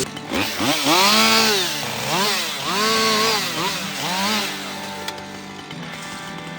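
Two-stroke chainsaw revved several times, its pitch climbing and falling with each throttle blip, then settling back to a steadier, lower running speed near the end.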